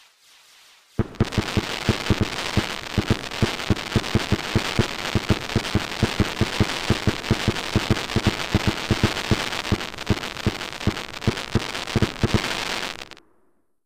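Dense barrage of fireworks: rapid bangs, several a second, over a steady crackling hiss. It starts about a second in and cuts off suddenly near the end.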